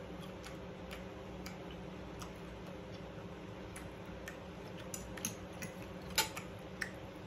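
Small scattered clicks and taps of a fork against a plate as baked chicken is pulled apart and eaten, a few sharper ones from about five seconds in, over a steady low hum.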